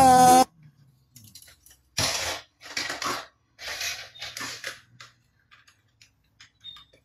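Background music cuts off just after the start, then a plastic toy fighter jet is handled on a tabletop: several short scraping handling noises between about two and five seconds in.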